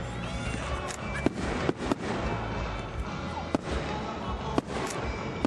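Fireworks display bursting: about half a dozen sharp bangs at uneven intervals over a steady dense rumble, with music playing.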